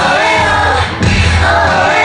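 Live K-pop song with female group vocals over a heavy bass beat, played through concert loudspeakers and heard from the crowd. The music dips briefly just before a second in, then comes straight back.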